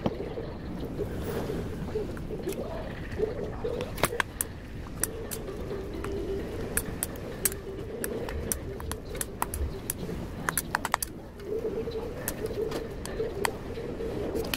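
Metal spoon clinking and scraping against a stainless steel bowl as bibimbap is mixed, in many quick irregular clinks. A low wavering hum runs underneath.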